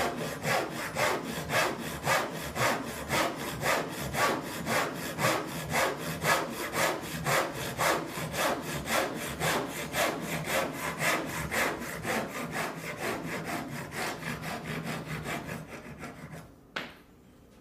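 Japanese double-edged ryoba saw cutting a small block of wood with its fine crosscut teeth, in quick, even strokes. The strokes grow softer and stop near the end as the cut goes through, followed by a single knock.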